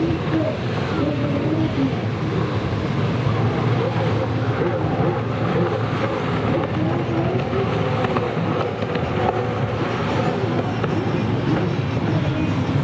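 Racing stand-up jet ski engines running hard, their pitch wavering up and down as the riders throttle through the buoy turns.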